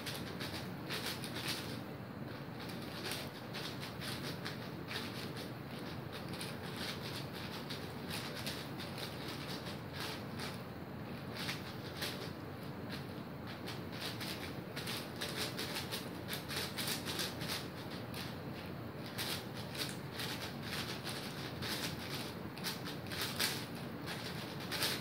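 Cubicle Magnetic WuShuang 5x5 speed cube being turned at speed-solving pace: a continuous, dense clatter of plastic layers clicking as they are turned, many turns a second.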